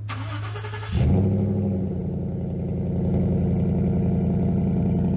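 A Toyota Land Cruiser FJ40-series engine whirring on the starter for about a second, then catching abruptly and settling into a steady idle.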